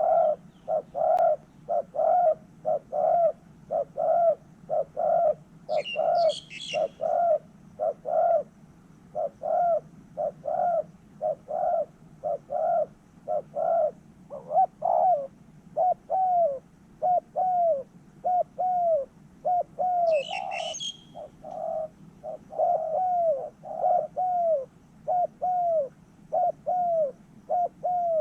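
Spotted dove cooing: a long, steady run of short coo notes, about two a second. A small bird chirps briefly twice, high above the coos.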